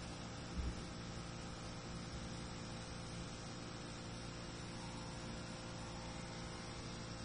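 Fiber laser cutting machine at work on a metal sheet: a steady hum and hiss. A brief low thump comes about half a second in.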